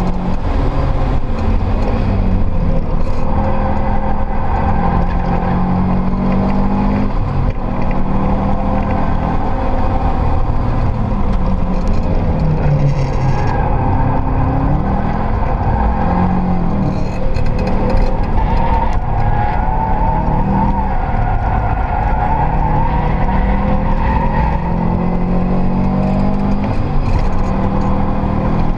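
Subaru Impreza WRX STi's built, turbocharged EJ flat-four heard from inside the cabin under hard track driving, its pitch climbing and dropping repeatedly through the gears. Tyres squeal at times as the car slides through corners.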